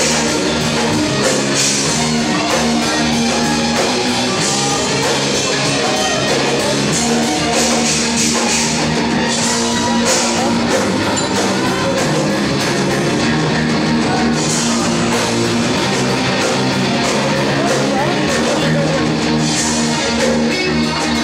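Hard rock band playing live, with electric guitar and drum kit going steadily, heard from the back of the club through a camera microphone.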